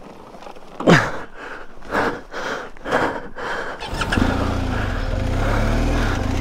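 Irregular knocks and scrapes as a fallen BMW GS adventure motorcycle is hauled back upright, then about four seconds in its boxer-twin engine starts and runs at a steady idle.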